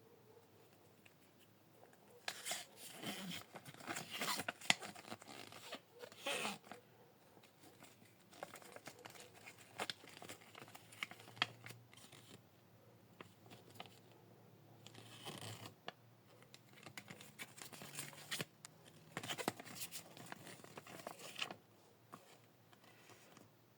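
Paper crinkling and rustling as a folded collector's guide leaflet is handled, in irregular bursts with sharp crackles.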